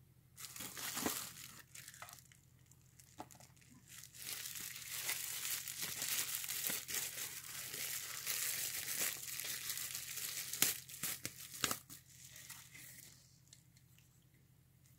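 Clear plastic bubble-wrap packaging crinkling and rustling as it is handled and pulled open, with a few sharper crackles, dying away about 13 seconds in.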